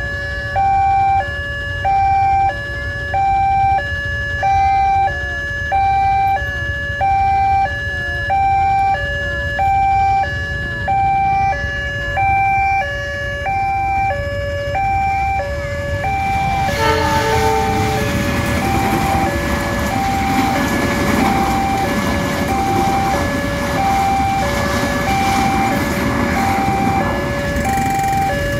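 Railway level-crossing warning alarm sounding a steady two-tone signal, alternating high and low about once a second. About 17 seconds in, a passing train's rumble and wheel noise on the rails rises and fills the rest, with the alarm still sounding beneath it.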